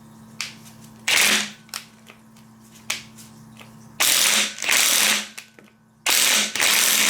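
Impact wrench hammering on the crankshaft's harmonic balancer bolt to break it loose: a short burst about a second in, a longer burst at about four seconds, and another starting near six seconds.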